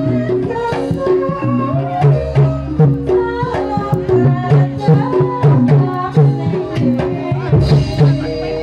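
Javanese jaranan ensemble music: kendang hand drums beat a fast, steady rhythm over a low gong drone, with a wavering melody line that bends in pitch.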